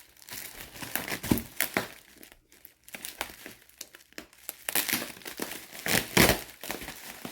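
Packaging crinkling as it is handled, in irregular bursts, with a short lull about two and a half seconds in and louder crinkling in the last few seconds.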